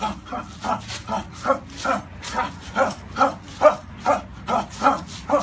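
A man's short, sharp exhales with each punch while shadowboxing, a steady rhythm of about two and a half a second.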